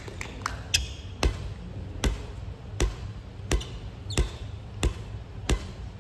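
A ball being struck or bounced repeatedly, about eight sharp impacts at an even pace of roughly one every three quarters of a second.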